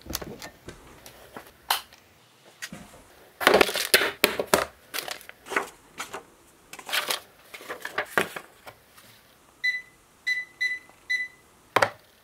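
Paper, an envelope and a card being handled over a plastic box, with rustles, clicks and knocks. Near the end, four short high beeps in quick succession as the buttons of a small digital display unit are pressed, then one last click.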